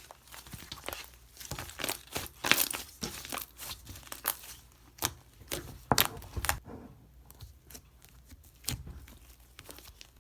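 Slime being squished, pressed and stretched by hand, giving irregular crackling and popping snaps, the loudest about two and a half and six seconds in.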